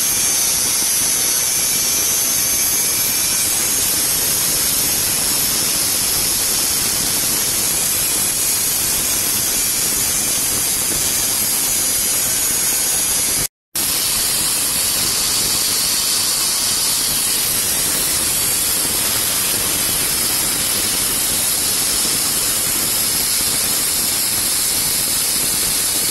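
Angle grinder with a cut-off disc, mounted on a lathe, cutting a groove into a turning metal workpiece: a steady, loud grinding hiss with a faint high whine. The sound cuts out for a moment about halfway through, then resumes.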